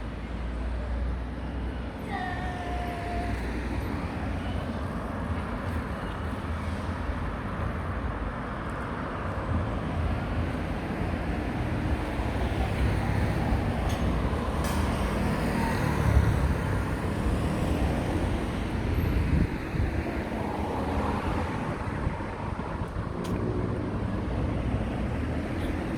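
City street ambience: steady road traffic running, with the low rumble of passing vehicles.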